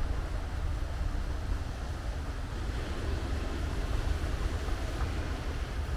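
Wind buffeting the microphone, a steady low rumble with a faint hiss above it.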